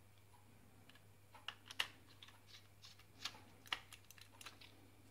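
Small sharp plastic clicks and taps from a Logitech M705 wireless mouse's shell being handled while its screws are driven back in with a small screwdriver: an irregular run of about a dozen clicks, the loudest near the middle.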